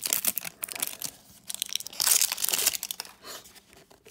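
Thin clear plastic wrap crinkling and tearing as it is peeled off a plastic toy capsule, with a louder tearing stretch about two seconds in, then a few quieter clicks of the plastic capsule being handled.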